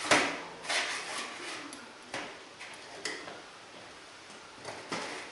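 Several separate sharp metal clicks and clinks, the loudest right at the start, as a small canister-top backpacking stove's burner and folding pot-support arms are handled.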